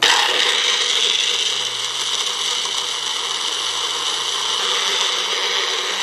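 Electric mixer grinder running steadily at high speed in its juicer jar, blending chopped carrots with cold water; it starts abruptly.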